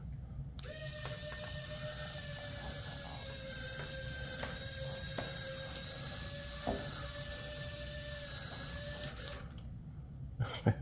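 RC4WD Warn Zeon 10 scale winch's small electric motor and gearbox whining steadily as it reels in cable under load, with a few light clicks. It starts about half a second in and stops after about nine seconds.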